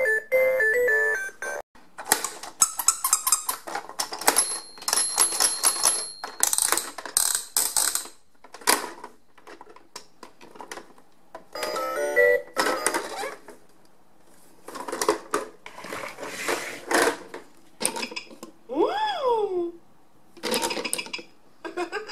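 Plastic pop-up baby toy being played, a Fisher-Price Boppin' Activity Bugs: its buttons, switches and pop-up bug figures clack and snap in a long run of separate clicks. Electronic toy music dies away in the first two seconds, a short high beeping comes a few seconds in, and a brief squeaky glide up and down comes near the end.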